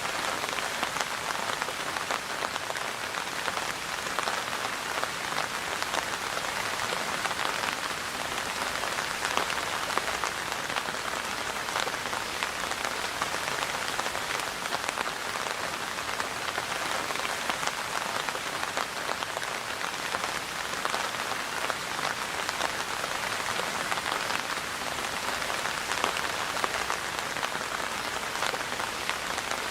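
Steady rain falling and pattering on surfaces, a dense hiss of many small drop impacts at an even level.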